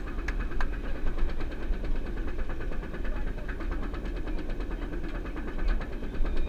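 Bolliger & Mabillard hyper coaster train climbing its chain lift hill: the chain runs with a fast, even ticking over a steady low rumble.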